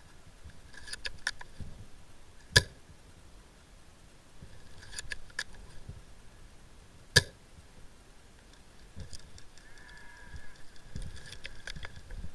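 Two sharp, loud clicks about four and a half seconds apart, with bursts of softer ticking and rustling between them.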